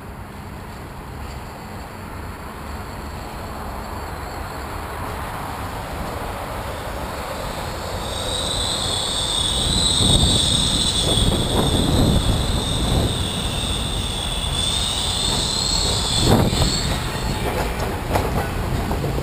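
Sydney R-class tram running, heard as vibration carried up its trolley pole: a rumble that grows louder, joined about eight seconds in by a high wavering squeal that lasts around nine seconds, with a sharp knock near the end.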